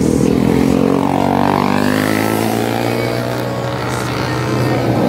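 Motorcycle engines running and revving, one engine's pitch dipping and then climbing again about one to two seconds in.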